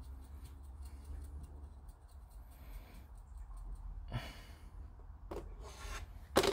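Quiet handling at a model-making bench: faint small clicks and taps, a breath or two, and a sharper click near the end, over a low steady hum.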